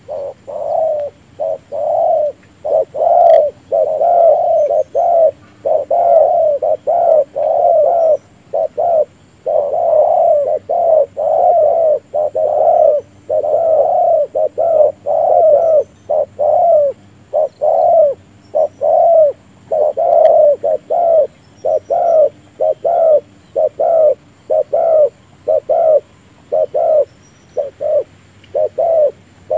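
Spotted dove cooing close by: a long, fast run of short, loud coo notes, about two a second, with a couple of brief pauses. It is the male's bowing coo, given as it dips its chest in display.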